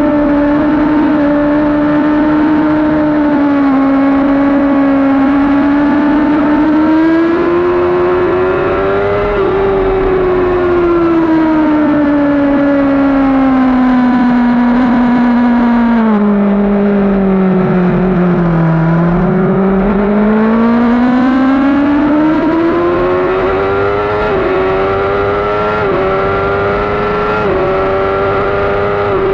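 2012 Yamaha R6's inline-four engine running hard at high revs, with wind rush. The pitch climbs, sinks slowly to its lowest about 19 seconds in as the bike slows, then rises again with small steps in pitch near the end as it shifts up under full acceleration.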